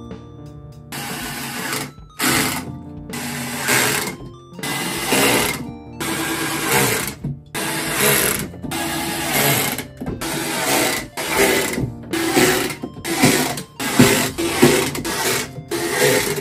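Corded power drill driving screws into wooden shelf boards in more than a dozen short bursts of a second or less, with brief pauses between.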